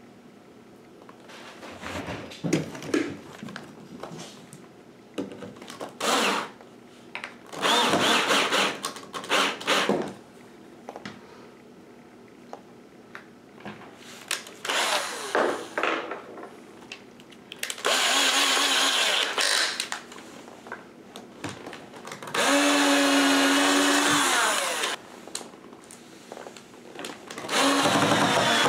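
Power drill running in about half a dozen separate bursts of one to two and a half seconds, pre-drilling holes and driving screws into wall trim to mount a stair gate's wall cups. One longer run holds a steady pitch, then winds down as the trigger is let go. Between bursts there is quiet handling.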